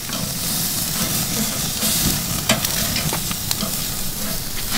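Porterhouse steak searing over open charcoal flames on a kamado grill, sizzling steadily as its fat drips onto the hot coals. A few sharp crackles pop through the sizzle, the clearest about halfway through.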